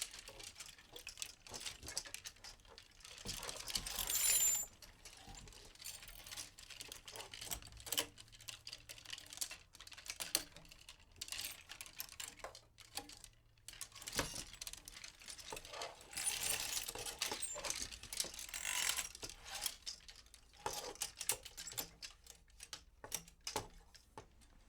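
Clothes hangers sliding along a rail: a run of light clicks and clacks as hangers knock together, with two longer scraping slides, one about four seconds in and a louder one past the middle.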